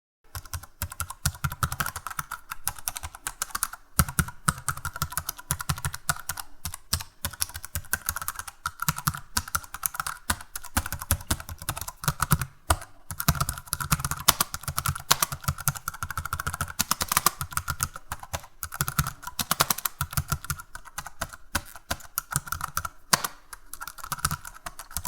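Computer keyboard being typed on: fast, irregular key clicks with short pauses now and then.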